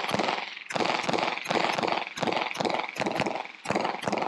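Zev OZ9 9mm pistol fired in a rapid string of about ten shots, roughly two to three a second, each crack trailing off briefly.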